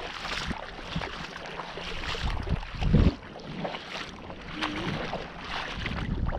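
Shallow seawater splashing and sloshing in short irregular bursts, as from wading, with wind on the microphone and a louder thump about three seconds in.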